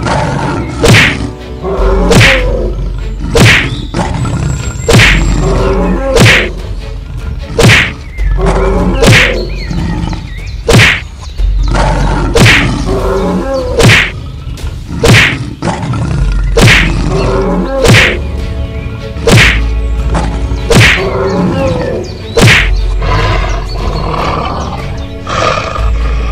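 Background music with a heavy beat: sharp drum hits about every one and a half seconds over a deep pulsing bass.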